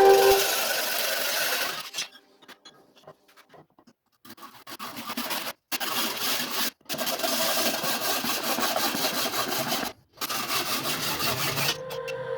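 Repeated rasping, rubbing strokes of a hand tool working a hard material. The sound breaks off abruptly a few times.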